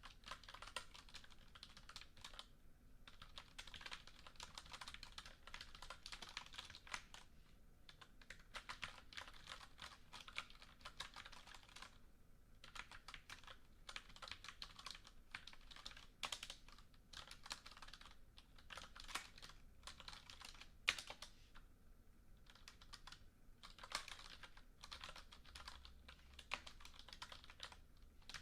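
Typing on a computer keyboard: quick runs of keystrokes broken by short pauses every few seconds, with the odd harder key strike.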